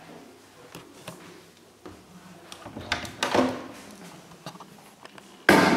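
A door being handled: scattered clicks and knocks, then one loud bang near the end that dies away quickly.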